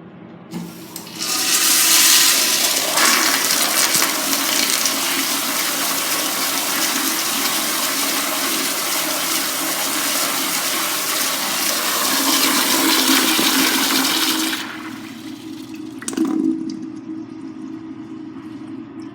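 Vintage Eljer toilet flushing: a loud rush of water starts about a second in and runs for some thirteen seconds, then drops to a quieter tank refill. Under the refill sits a steady humming tone, a noise the owner cannot identify, with a brief surge about sixteen seconds in.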